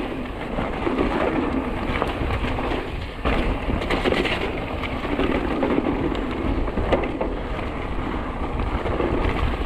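Mountain bike rolling down a rough trail: tyres over dirt and stones with steady clattering rattles, and wind buffeting the camera microphone as a low rumble.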